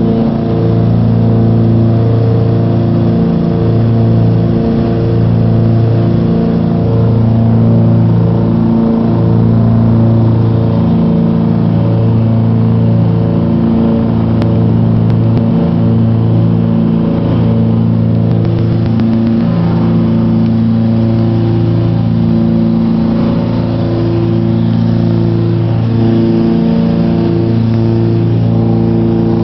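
Cabin drone of a Cessna 421's twin engines, geared turbocharged Continental flat-sixes, and their propellers running steadily in flight. The drone swells and dips in a slow, regular beat about every two seconds, the throb of two propellers turning at slightly different speeds.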